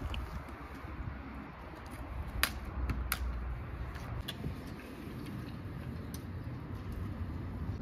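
Spade and hoe digging into garden soil: scraping and crunching of the blades in the earth, with a few sharp clicks about two and a half, three and four seconds in.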